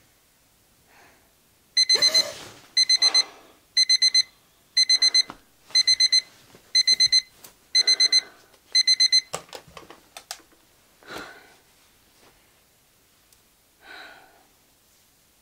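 An electronic alarm beeps in quick groups of four high beeps, about one group a second, eight groups in all, then stops. A person stirs under the beeps. A few clicks follow, and a sleepy breath comes near the end.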